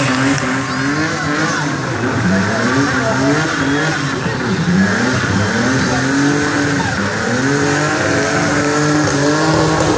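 Drift cars' engines revving hard, rising and falling again and again, over the screech of tyres spinning and skidding sideways on asphalt.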